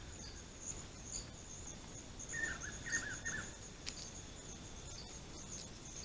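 Faint, steady chirping of night insects such as crickets, in an even pulsing rhythm. A short warbling call from another small animal breaks in twice, about two and three seconds in.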